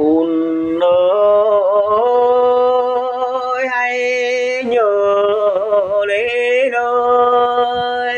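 Mường folk song music: a single melodic line of long held notes that glide into one another, over a steady low drone. It starts abruptly after a moment of silence.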